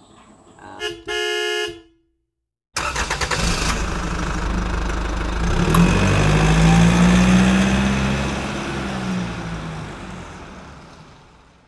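A car horn toots once, briefly, about a second in. After a short silence a car engine comes in loud, rises in pitch to a peak midway, then falls and fades away.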